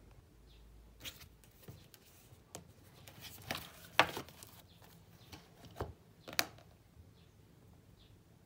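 A spiral notebook and a pen being handled and set down on a desk: a string of light knocks, taps and rustles, the sharpest about four seconds in and again about six and a half seconds in.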